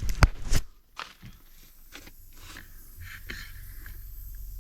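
A few sharp handling clicks and knocks, then a faint steady hiss of refrigerant leaking from the outdoor coil of a two-stage Trane air-conditioning unit: a sign of a leak at the coil's brazed U-bend fittings, which are oily.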